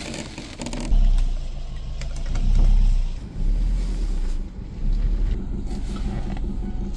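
A vehicle towing a boat trailer slowly over a bumpy dirt road, heard as a deep rumble. The rumble swells and drops in several heavy surges, the first about a second in, as the trailer rides up and down.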